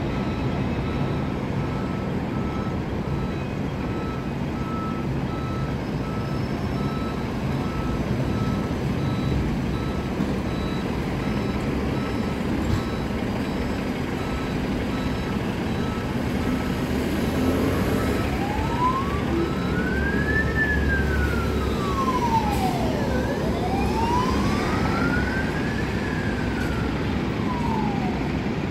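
Mercedes van ambulance pulling out into street traffic, its engine and the traffic running steadily under a pulsing electronic beep. About two-thirds of the way in the ambulance's siren starts a slow wail, sweeping up and down in pitch about every five seconds as it heads off on an emergency call.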